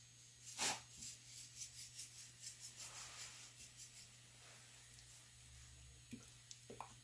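Salt and pepper going onto a raw pork loin: a faint knock, then a faint run of light ticks, about three a second, for a couple of seconds, and a few soft clicks near the end.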